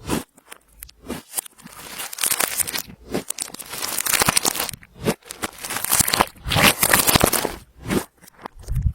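Hands kneading and stretching clear slime as makeup and glitter are mixed in: dense runs of small clicks and pops that come in spells with short breaks between them.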